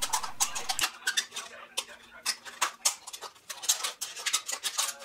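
Scissors snipping through a thin aluminium drink can while the can is turned, heard as a rapid, irregular run of sharp clicks and crinkles.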